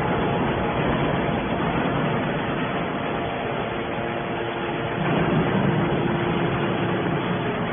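YDF-63 hydraulic scrap metal baler running, a steady mechanical drone with faint constant whine tones that swells slightly about five seconds in.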